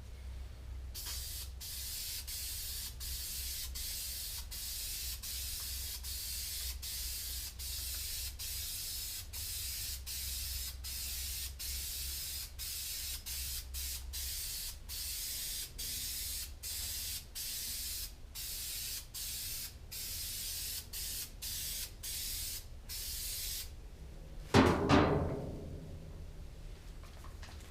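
Aerosol rattle can of spray-on truck bed liner hissing as it coats the inside of a steel toolbox, in long passes broken by many brief let-offs of the nozzle. A much louder knock or clatter about three seconds before the end.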